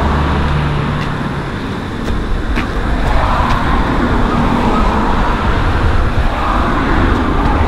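Outdoor traffic noise: a steady rumble of road traffic, heaviest in the low end, with no speech.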